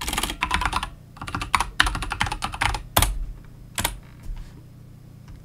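Typing on a computer keyboard: a quick run of keystrokes, then a louder single stroke about three seconds in and another a moment later, after which the typing stops.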